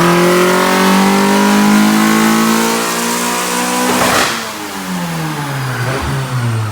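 Honda Prelude's H22A4 four-cylinder, straight-piped through headers to a single muffler, making a full-throttle dyno pull: the engine note climbs steadily under load. About four seconds in there is a short burst of noise, and then the pitch falls as the engine winds down.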